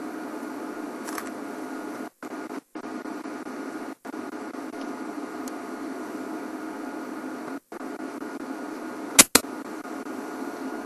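Steady hum and hiss of background noise on the audio feed. It cuts out to silence for a moment four times, and two sharp clicks come close together about nine seconds in.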